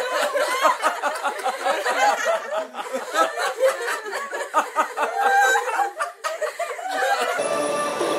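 Laughter: a run of snickering and chuckling with a thin sound, lacking any low end. About seven seconds in it cuts to background music.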